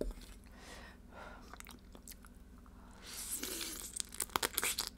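Biting and chewing on a piece of raw blue crab marinated in spicy sauce (yangnyeom gejang), with a quick run of crunches from about three seconds in.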